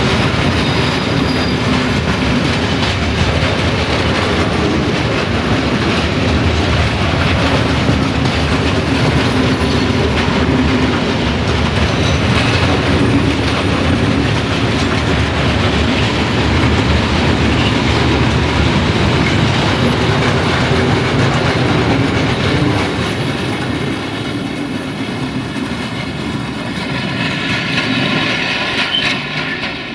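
Fals-type freight hopper wagons rolling past close by, their wheels clattering steadily over the rail joints; the noise eases somewhat in the last several seconds.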